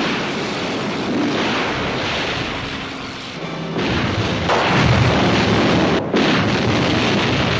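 Film explosions edited back to back: a sustained blast, a louder new explosion starting about four seconds in, and an abrupt cut to another about six seconds in, with orchestral film score underneath.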